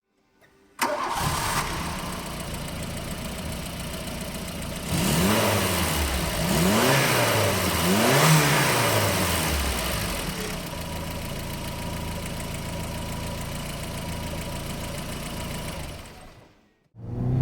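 VW Golf Mk1 GTI's 1.8-litre four-cylinder petrol engine comes in suddenly about a second in and idles. It is blipped three times, each rev rising and falling back, then settles to a steady idle and dies away near the end.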